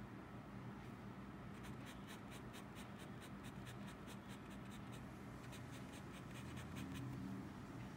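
A Lamy Safari fountain pen with an extra-fine nib scratches quick hatching strokes on Moleskine sketchbook paper, about five strokes a second. The strokes start about one and a half seconds in and pause briefly near the middle.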